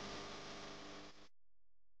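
Faint steady background noise with a few faint held tones, fading down and then cutting to dead silence a little over a second in.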